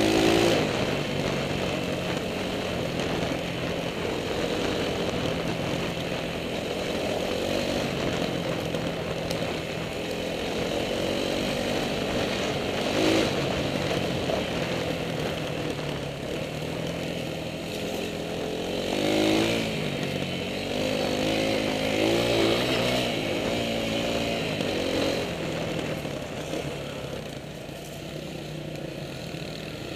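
Dirt bike engine running on a trail ride, heard from the rider's own bike, with the revs rising and falling repeatedly as the throttle is worked.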